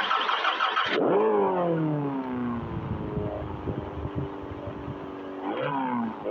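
Mercedes-Benz 190E engine revving: it starts high and harsh, the revs fall away over about two seconds, hold steady, then climb again near the end.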